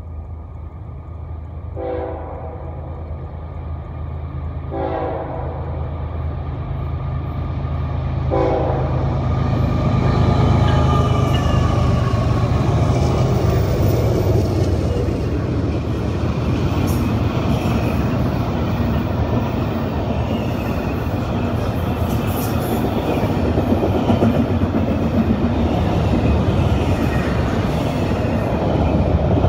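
A diesel-hauled freight train led by a Citirail locomotive with BNSF and CSX units approaches, sounding three short horn blasts a few seconds apart over the rising engine rumble. The locomotives pass loudly about ten seconds in, then a double-stack container train rolls by with steady wheel and rail noise and occasional clanks.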